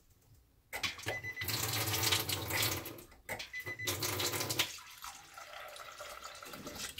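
Kitchen tap water running, starting about a second in and splashing into a stainless steel sink, briefly cut off around three seconds in. It then runs on more quietly as a thin stream from the water ionizer's spout fills a rice-cooker pot of rice.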